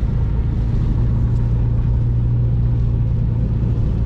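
Steady low road and engine drone heard inside the cabin of a moving car on a wet road, with a hum that grows stronger through the middle and eases near the end.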